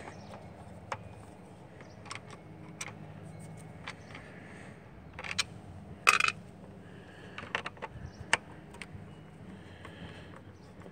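Scattered light clicks and scrapes of a screwdriver and hands on the plastic back housing of a Ford gauge cluster as its Torx screws are worked out. There is a louder scrape about six seconds in and a run of clicks a little later.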